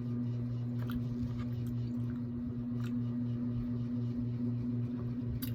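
A steady low hum throughout, with a few faint soft clicks and mouth sounds of someone eating cheesecake.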